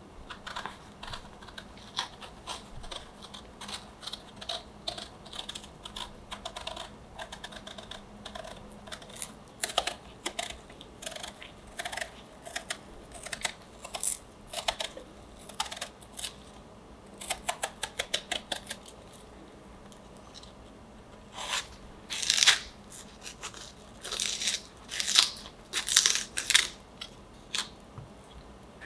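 Small kitchen knife peeling a whole peach: irregular crisp cutting and tearing sounds as the blade slices the skin away, some in quick runs, louder ones near the end.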